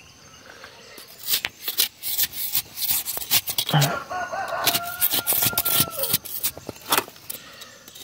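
A rooster crows once, starting about four seconds in and lasting about two seconds, over scattered sharp clicks and knocks.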